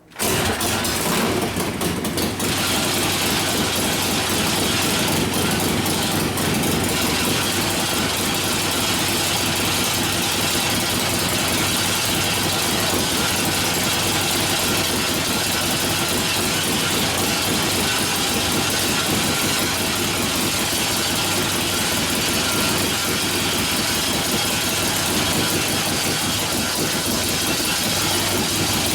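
A freshly rebuilt 1972 Harley-Davidson Ironhead Sportster V-twin starts right at the beginning, runs unevenly for about two seconds, then settles into a steady run on choke.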